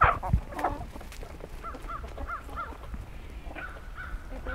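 Birds calling: a loud, harsh, caw-like squawk at the very start, then several short, repeated chirping notes.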